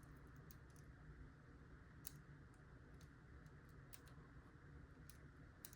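Faint, scattered clicks of a lock pick and tension wrench working the pins inside an Abus 72/40 padlock.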